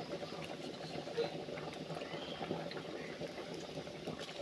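A pot of jackfruit seeds boiling hard in water, with a steady bubbling.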